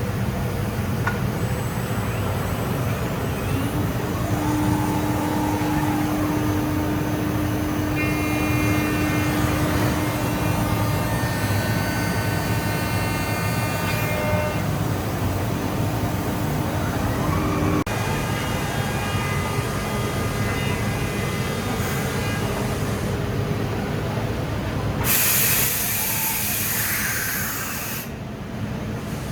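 MKM UNI Portal TB CNC portal machining centre running: a steady low machine hum with whining tones from its drives that come and go, and a loud hiss of air for about three seconds near the end.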